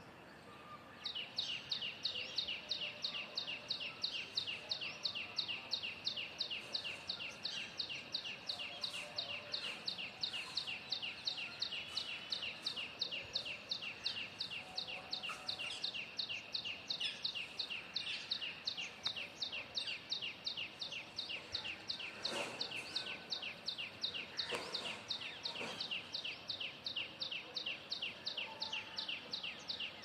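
A small bird gives a high chirping call, repeated steadily several times a second, each note sweeping down in pitch. It starts about a second in. Two brief scuffing noises come about two-thirds of the way through.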